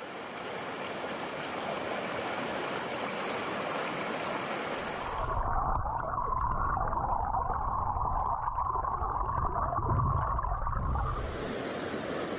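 Rushing water of a small mountain stream. About five seconds in, the sound goes under the surface for some five seconds, turning into a muffled, low gurgling with the hiss gone, then the open rush of the stream returns near the end.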